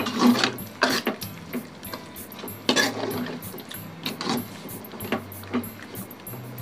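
A metal ladle stirring thin curry in an aluminium kadai, clinking and scraping against the pan in irregular strokes, with a faint low hum underneath.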